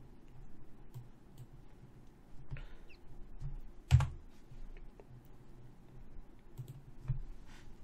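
Scattered faint clicks and light taps, with one sharper, louder click about four seconds in.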